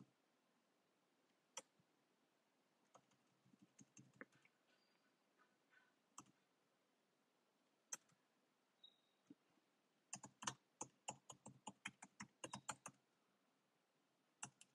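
Faint typing on a computer keyboard. A few scattered keystrokes come first, then a quick run of keystrokes lasting about three seconds from around ten seconds in, and a single key press near the end.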